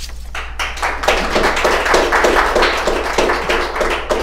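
Audience applauding. The clapping swells about half a second in and dies away near the end.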